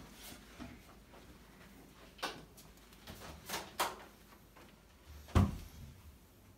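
Washing machine lid and dryer door being opened and handled: a few short knocks and clicks, with a sharp, low thump about five seconds in as the loudest.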